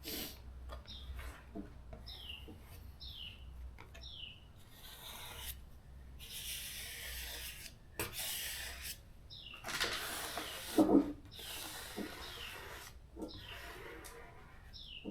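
Vinyl side stripe being rubbed down onto a car's body panel in several long scratchy strokes, with a sharp knock about eleven seconds in. A bird chirps repeatedly, each chirp a short falling note.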